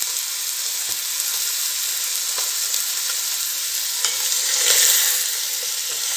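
Marinated chicken pieces frying in melted butter in a hot pan, a steady sizzle that swells a little after halfway.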